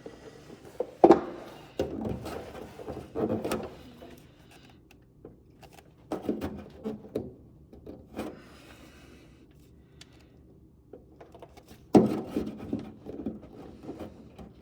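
Hands-on work fitting a car's front spoiler: sharp knocks, scrapes and rubbing as the part and its fasteners are handled, in three bursts with quieter pauses between them.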